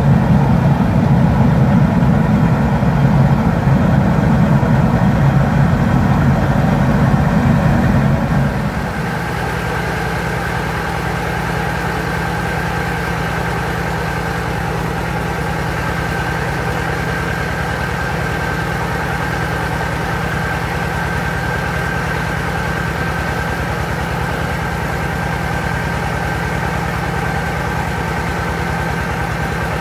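Diesel engine driving a mobile rice-milling machine (huller and polisher), running steadily. For about the first eight seconds the sound is louder and deeper, then it settles to a quieter, even run with a thin high whine over it.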